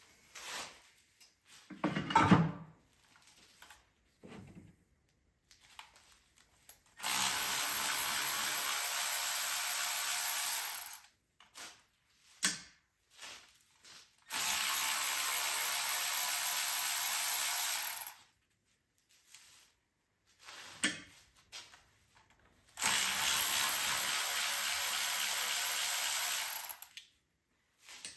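A power tool runs in three steady bursts of about four seconds each, with a few short knocks of tools and parts in between.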